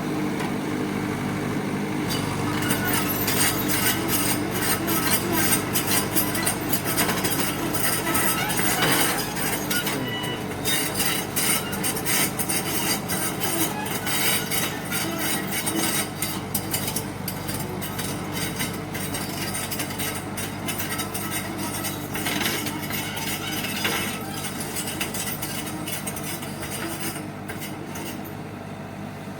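Bulldozer's diesel engine running steadily under load, with many sharp knocks and cracks over it through most of the stretch, easing off toward the end.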